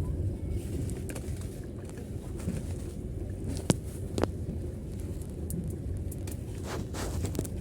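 Outdoor street ambience: a steady low rumble, with two short sharp clicks in the middle and a few quick high ticks near the end.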